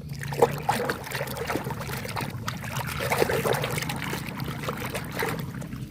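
Water running and splashing as a muddy toy vehicle is washed, with small knocks and clicks of the plastic toy being handled in the water.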